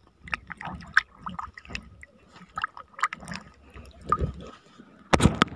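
Small splashes and drips of shallow seawater, with scattered light clicks of handling. A short, loud clatter comes about five seconds in.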